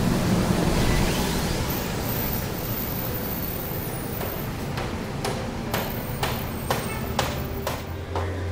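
Street traffic noise, a steady wash of road sound. In the second half, a run of sharp knocks comes roughly twice a second.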